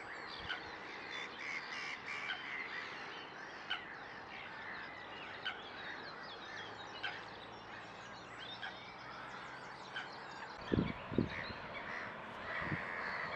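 Small birds singing and calling in a chorus of quick chirps and short trills. A few low thumps stand out about three-quarters of the way through.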